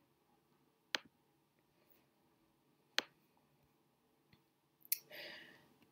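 Two sharp computer clicks about two seconds apart, then two fainter clicks and a short soft breath near the end.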